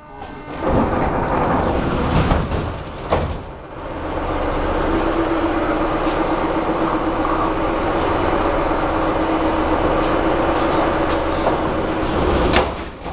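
Moscow metro 81-717/714 car: the train comes to a stop at a station and the sliding doors open with a clunk about three seconds in. The car then stands with a steady hum. Near the end the doors shut with a sharp bang.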